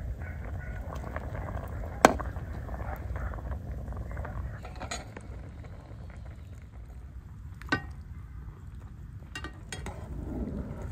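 A spoon clinking against a pot and a ceramic bowl while boiled beef brains are lifted out of simmering water, several sharp clinks with the loudest about two seconds in. A steady low rumble lies underneath.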